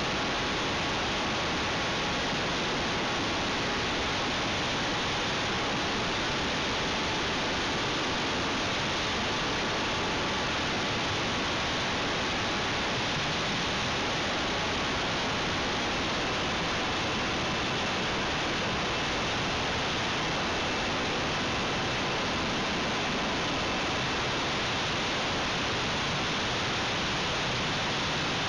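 Steady rushing noise of airflow and propeller on board a radio-controlled orb-shaped aircraft in flight, with faint steady whining tones underneath.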